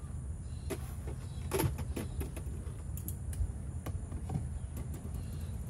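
Wooden beehive frames and a hive tool scraping and knocking as the hive is worked: several short scrapes and clicks, the loudest about a second and a half in, over a steady low rumble.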